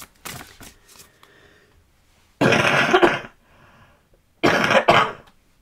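A woman coughing in two bouts, about two and a half seconds in and again near the end: a chesty cough that she puts down to bronchitis.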